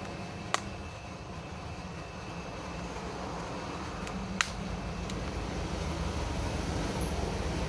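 Jiamei mini ceiling fan running with a steady low hum and a faint high whine, with two sharp clicks, one about half a second in and one about four seconds later.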